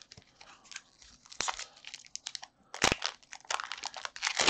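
Foil wrapper of a Pokémon trading-card booster pack crinkling and crackling in the hands as it is handled and opened, with one sharp snap about three seconds in and denser crackling near the end.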